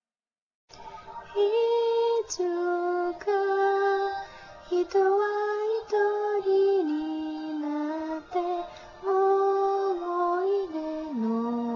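A high singing voice carrying a slow melody of long held notes that step up and down in pitch, moving lower near the end. It starts about a second in, after silence.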